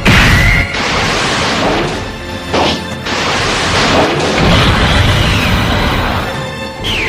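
Anime fight sound effects: loud crashing impacts and blasts layered over dramatic orchestral film music. They start with a sudden hit, and a steep falling swoop comes near the end.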